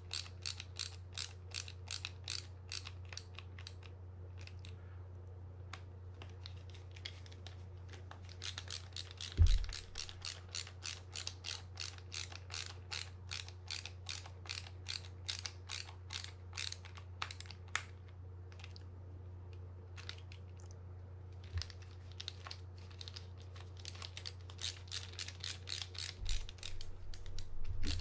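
Ratcheting screwdriver clicking in quick runs of about three clicks a second as it drives small screws back into a spinning reel's body, with a few short pauses. There is a single louder knock about nine seconds in, and a low steady hum underneath.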